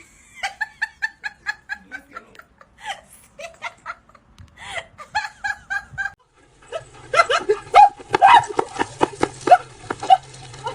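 A person laughing in quick repeated bursts, then louder and harder laughter in the second half.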